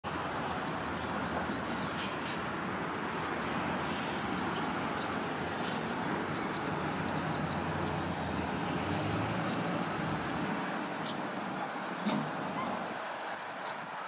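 Small songbirds giving scattered short, high chirps over a steady background rumble; the deep part of the rumble drops away about ten and a half seconds in.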